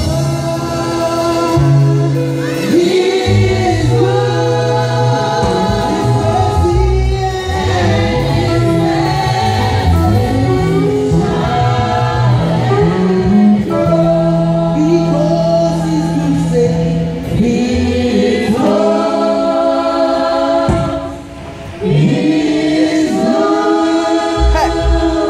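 Gospel worship team singing a praise song together in several voices, backed by a live band with sustained low notes underneath. Near the end the music briefly drops away before the voices come back in.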